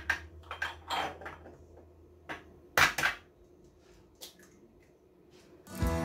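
A few separate clinks and knocks of kitchenware, glass bowls and containers set down and handled on a stone countertop, with quiet gaps between. Background music comes back near the end.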